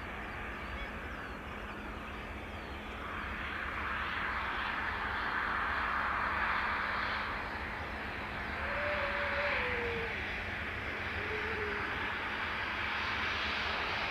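Aircraft engine noise, a steady rush that swells about three seconds in and stays loud. A short wavering whistle comes through near the middle.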